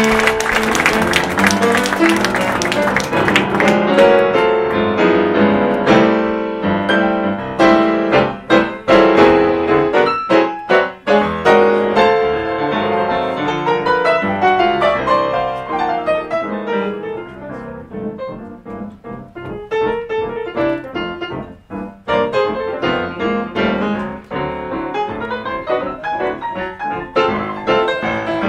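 Two grand pianos, one a Yamaha, playing a jazz duet together in dense runs and chords. The playing thins out and grows quieter past the middle, then builds again near the end.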